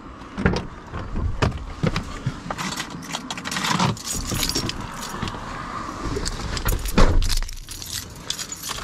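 Bunch of keys jangling and clinking as someone opens a Volkswagen van's door and climbs into the seat, with scattered knocks and rustles; a loud thud about seven seconds in.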